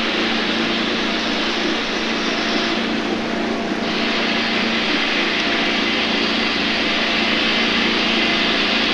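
Boat motor running steadily, a constant drone under a steady hiss; the hiss drops away for about a second about three seconds in.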